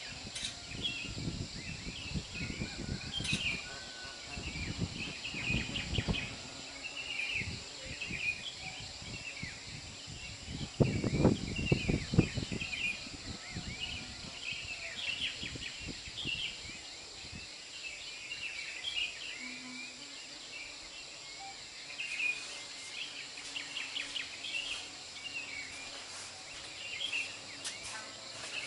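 Many small birds chirping continuously, over a faint steady high hiss. Irregular low rumbling runs underneath for the first half, loudest about eleven seconds in, and dies away after about seventeen seconds.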